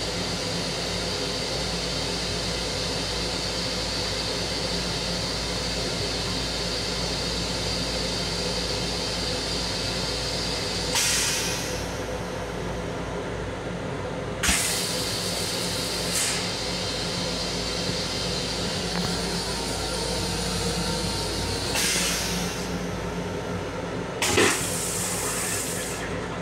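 Steady running rumble of a Long Island Rail Road M7 electric railcar heard inside its restroom, with a faint steady whine, broken by several short hisses. Near the end comes a louder rushing hiss as the toilet flushes and rinses the bowl.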